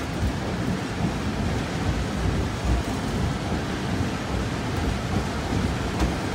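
Steady rumbling noise of a steam train heard from an open passenger car riding behind two Shay geared steam locomotives, with the locomotives' exhaust and the wheels on the rails merging into one continuous rumble.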